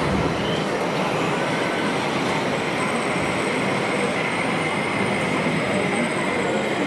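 Steady mechanical rumble with a faint high whine, from a 1:16 radio-controlled Kirovets K-700 model tractor driving and dragging a cultivator through sand.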